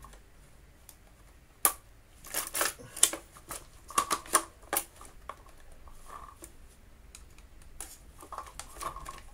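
Plastic clicks and rattles of a Dyson DC50 vacuum's housing and internal hose as they are handled and worked loose. There is a sharp click about a second and a half in, then a run of clicks over the next three seconds, then a few fainter ones near the end.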